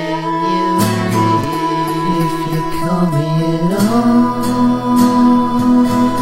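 Music: a song, its vocal line holding long notes over instrumental backing.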